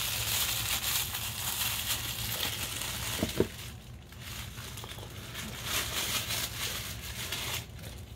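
Small toy wrappers of paper and plastic being torn open and handled by hand, a dense run of crinkles with a short break about four seconds in.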